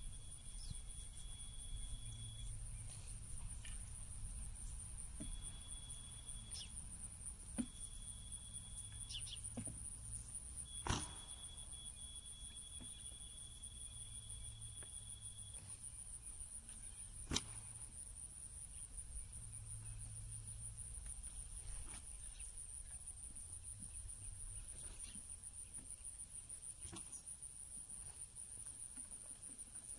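Insects trilling steadily and high. Over it, a laser level receiver on a grade rod sounds a steady tone in several stretches during the first half, its on-grade signal. Two sharp knocks, about a third and halfway through, are the loudest sounds.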